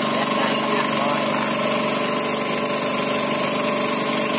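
Small wooden boat's motor running steadily at an even pitch, heard from on board.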